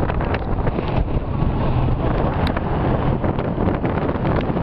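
Wind buffeting the microphone: a loud, steady noise strongest in the low end.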